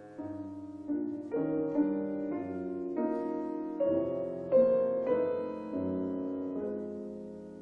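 An 1864 Julius Blüthner piano playing slow sustained chords, struck one after another, each ringing and fading. The strongest chord comes about halfway through.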